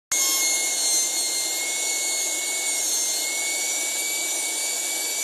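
A small, fast-running motor giving a steady, high-pitched whine over a loud hiss, starting abruptly.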